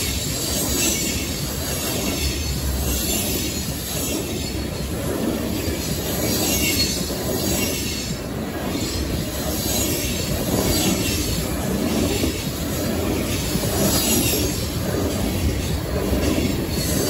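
Loaded open-top coal cars of a freight train rolling past close by: steel wheels running on the rails in a steady, unbroken rumble.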